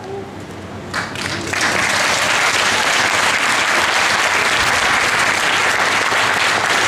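Audience applause: after a brief lull, the clapping starts about a second in and swells into steady applause.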